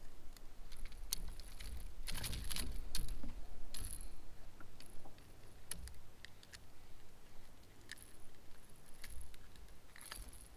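Light clicks and small metallic rattles of hands working at a freshly caught small spotted bass and its lure, as the fish is unhooked. The clicks bunch up about two to four seconds in, then come more sparsely.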